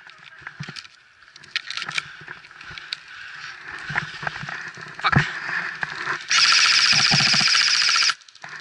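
Footsteps and twigs crackling on a forest floor. About six seconds in, an airsoft gun fires a rapid full-auto burst lasting about two seconds, starting and stopping sharply.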